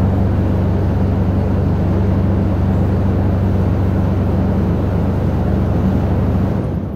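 Truck dumper's vibrator shaking a raised chip trailer: a loud, steady low hum with rattle, used to shake the last sawdust loose. It stops near the end.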